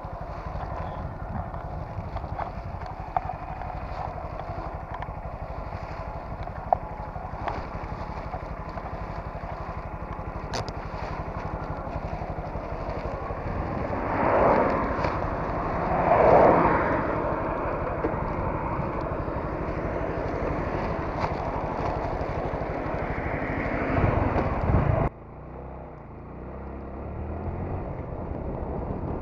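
Honda MSX125's small single-cylinder engine running while riding, with road and wind noise. It swells louder twice in the middle and once more near the end, then drops suddenly to a quieter rumble.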